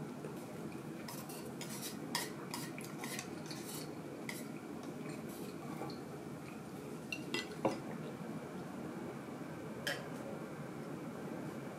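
Chopsticks clinking on ceramic bowls and plates during a meal: scattered light clicks, a few bunched together, over a faint steady background hum.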